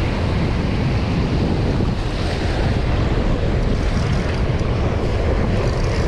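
Ocean surf breaking and washing around the legs, with wind buffeting the microphone in a steady, heavy rumble.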